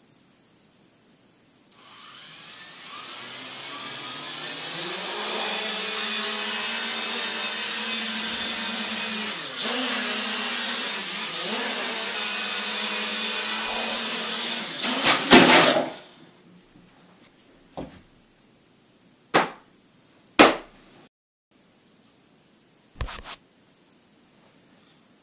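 Hubsan H216A quadcopter's brushed motors and propellers spinning up about two seconds in, then holding a steady whine as it flies in a small room. The whine ends about fifteen seconds in with a cluster of loud knocks as the drone crashes. A few separate clicks and knocks follow.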